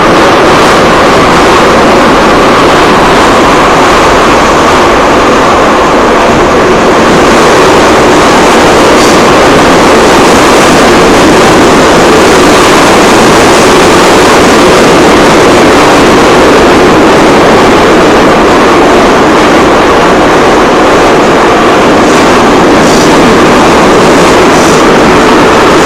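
Loud, steady running noise of a metro train heard from inside the car, with a hum that drifts slowly up and down in pitch.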